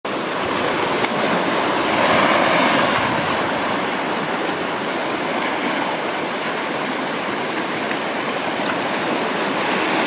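Sea surf washing in among shoreline boulders: a steady rush of small waves, swelling a little about two seconds in.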